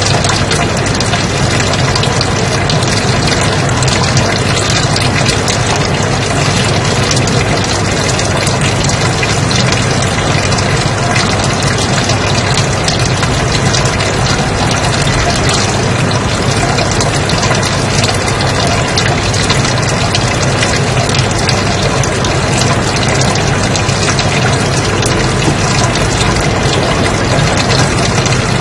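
Continuous white noise, a steady even hiss across the whole range, unchanging throughout.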